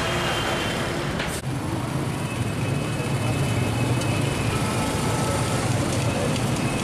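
Heavy road traffic: a steady rumble of engines from a jam of cars, motorcycles and trucks. A short click and dip about one and a half seconds in.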